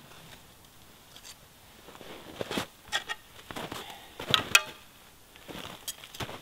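Footsteps crunching in snow, irregular, starting about two seconds in, with the loudest crunches around four seconds in.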